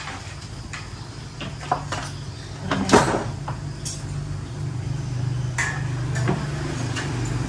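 A backpack being handled and set down, with rustling and a few knocks, the loudest about three seconds in, over a steady low hum.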